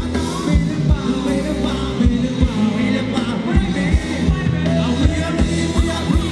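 Live Thai ramwong band music, with a steady kick-drum beat about twice a second under a singing voice and backing instruments.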